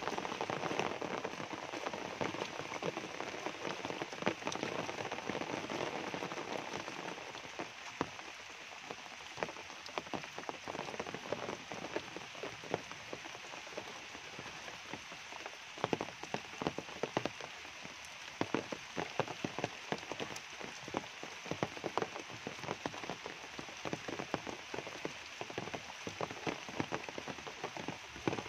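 Steady rain falling on tropical forest foliage, a muddy path and an umbrella held overhead, with many sharp, close drop strikes through the hiss. The rush is fuller for the first seven seconds or so, then eases a little.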